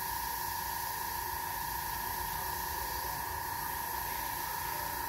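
Gravity-feed airbrush spraying paint onto a canvas board: a steady hiss of air and paint, with a steady high tone running under it.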